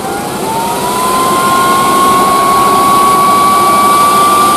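Portable electric PCP air compressor running while charging an air rifle. Its high motor whine rises in pitch over the first second, then holds nearly steady and grows a little louder.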